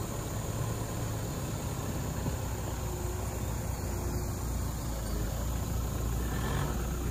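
Vehicle engine running steadily, a low even rumble with no revving or breaks.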